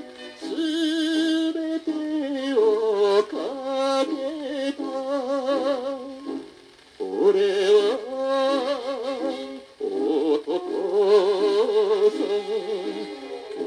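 A 1959 Japanese popular-song (kayōkyoku) record playing on a turntable: pitched melody lines with heavy vibrato over accompaniment, briefly dropping away about six and a half seconds in before coming back.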